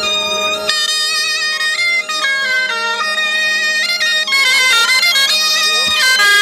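A Breton bombarde and binioù bagpipe playing a tune together, the melody moving in quick steps over the bagpipe's steady drone.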